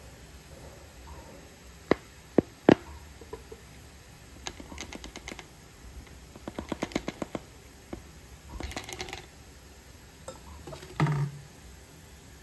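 A plastic bottle cap pressed and tapped onto soft potato-dough patties on a plate: three sharp clicks about two seconds in, then runs of quick light taps. A short rustle and a dull thump near the end.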